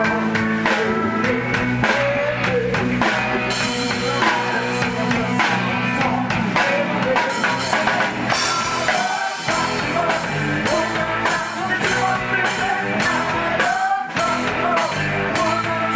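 Live pop-rock band playing loud through a big sound system: electric guitars, a drum kit keeping a steady beat, and singing.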